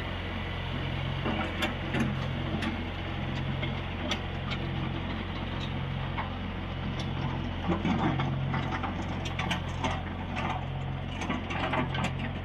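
John Deere 1020 tractor engine running steadily under load as it drags a grading box across a gravel driveway, with a throb that pulses about once a second. Scattered clicks and crunches of gravel run throughout.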